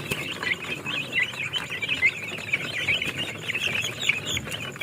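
Many young chicks peeping all at once, a dense, unbroken chorus of short high chirps.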